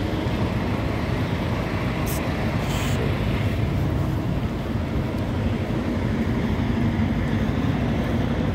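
Steady low rumble of idling semi-truck diesel engines, with two brief clicks about two and three seconds in.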